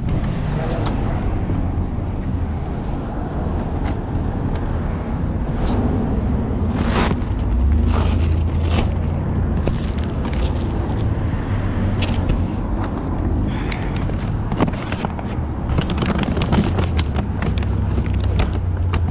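Street traffic noise: a steady low rumble of passing vehicles, with scattered clicks and knocks close by.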